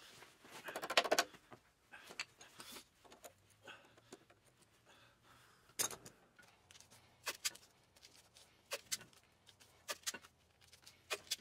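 Light metallic clicks and taps of small parts being handled at a garden tractor's steering tie-rod end, where a cotter pin has just been fitted through the castle nut: a quick rattle of clicks about a second in, then single sharp clicks every second or two.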